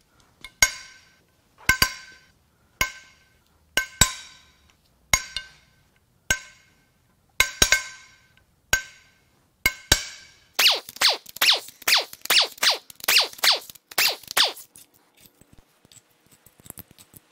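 Cylinder head bolts on a VW 2.0L TSI EA888 engine cracking loose under a breaker bar with a RIBE socket, one sharp ringing metallic pop about every second. About ten seconds in comes a quick run of rapid clicking for a few seconds, then a few faint ticks.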